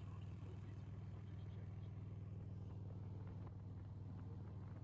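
Harley-Davidson touring motorcycle's V-twin engine running steadily at cruising speed, heard faintly as a low, even drone.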